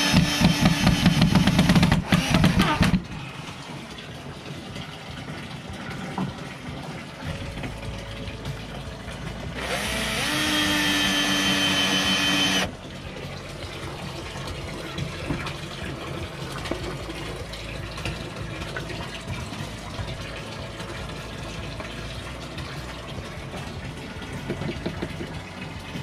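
Makita cordless driver drill driving a screw into wood, loud for about three seconds and then stopping. About ten seconds in the drill runs again for about three seconds, rising in pitch and then holding steady, followed by a low steady background hum.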